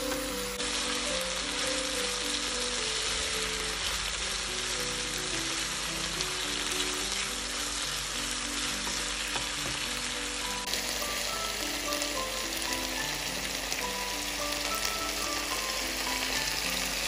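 Soy-marinated chicken pieces and onion frying in oil over high heat in a nonstick pan, a steady dense sizzle, stirred with a wooden spatula. The sizzle changes abruptly about half a second in and again about ten seconds in.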